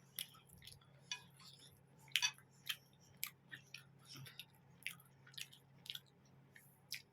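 Close-up chewing of mutton curry and roti: a string of irregular wet mouth clicks and smacks, a dozen or so, with a faint steady hum underneath.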